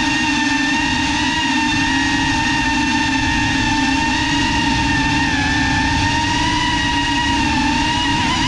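FPV racing quadcopter's brushless motors whining steadily as it cruises, recorded by its onboard camera. The pitch dips briefly a little past the middle and begins to climb right at the end as the throttle comes up.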